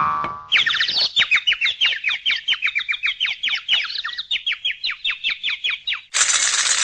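Cartoon bird-tweet sound effect: a fast run of short, falling chirps, about five a second, starting about half a second in. Near the end it gives way abruptly to a burst of high hiss.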